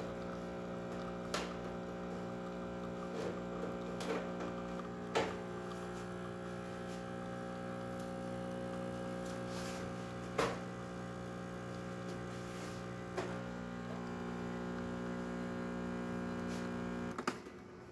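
Breville espresso machine's newly replaced vibratory pump humming steadily while extracting a shot at full pressure, with a few faint ticks. It cuts off with a click near the end, as the single shot finishes.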